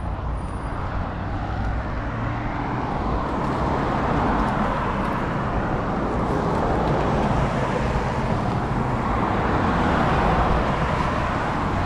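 Steady rushing road noise of cars passing on the adjacent road, mixed with the rush of riding a bicycle along a concrete sidewalk, growing a little louder after the first few seconds.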